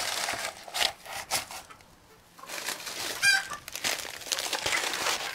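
Rustling and crinkling of nesting pads being handled and pushed into nesting boxes, with a brief lull near the middle. A chicken gives one short call about three seconds in.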